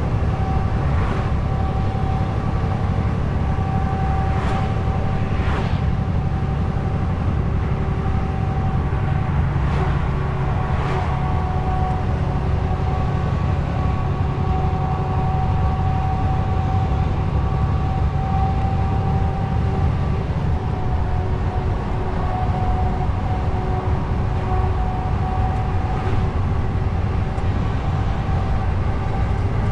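Truck driving along: a steady low engine and road rumble with a steady whine over it, and a few brief faint knocks.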